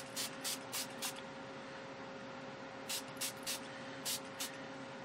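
Dylusions ink spray bottle pumped in short hissing spritzes: a quick run of about five sprays, a pause of nearly two seconds, then another run of about six.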